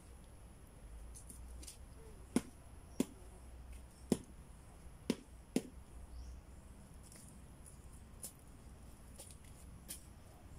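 Five dull thumps, roughly a second apart in the first half, as soil is struck and packed down around a newly planted seedling. A steady high insect trill, like crickets, runs behind them.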